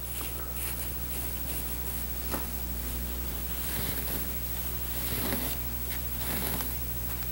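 Hands working moss upholstery padding over a burlap-covered seat deck: a soft, irregular rustling and scratching of the fibres, with one light tick a little after two seconds and a faint steady hum underneath.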